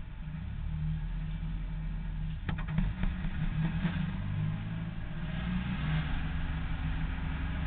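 BMW 2.5-litre straight-six engine of a Zilhouette silhouette race car running under way, heard from inside the cockpit. A few sharp clicks come about two and a half seconds in.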